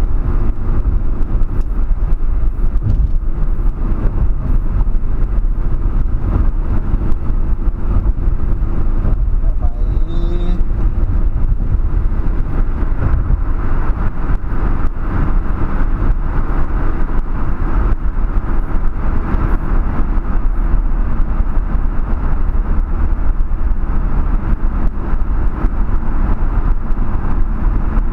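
Steady tyre and road noise with engine drone heard from inside a car cruising on a highway, the car passing into a road tunnel partway through. A brief high tone sounds about ten seconds in.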